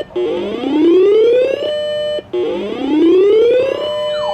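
Siren sounding a repeating rising whoop: twice, each tone climbing for about a second and a half, holding briefly, then cutting off. A fast wavering siren tone starts near the end.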